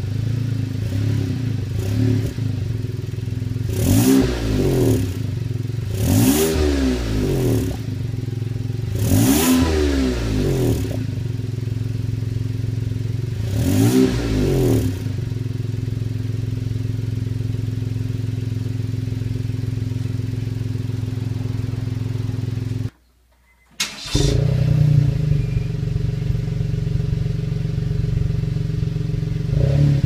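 Car engine idling through an aftermarket dual-tip exhaust fitted with a homemade flange silencer, blipped four times, each blip a short rise and fall in pitch; the sound is well muffled. After a brief cut about three-quarters through, it idles again without the silencer, with a stronger low rumble.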